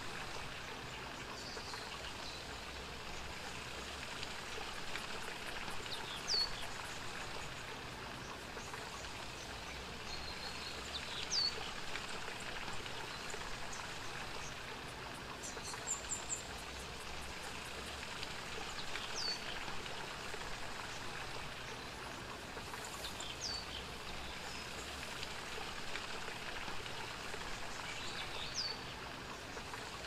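Steady rushing water, with a bird giving a short, sharp falling call five times, a few seconds apart, and a few higher chirps near the middle.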